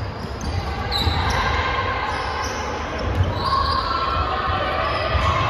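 Basketball game in a large echoing gym: basketballs thumping on the hardwood floor over and over, short sneaker squeaks, and a din of distant voices.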